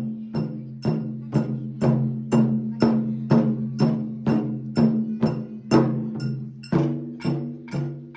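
Music with a steady beat of sharp strikes, about two a second, over sustained ringing tones.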